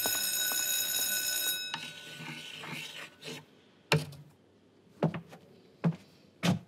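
An electric bell ringing steadily, cutting off suddenly about two seconds in, then four sharp knocks spread over the last three seconds.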